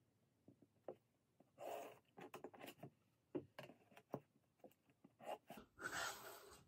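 Faint scratching and light taps of a pencil drawing along a clear plastic grid ruler on pattern paper, with a rustle of the ruler sliding across the paper near the end.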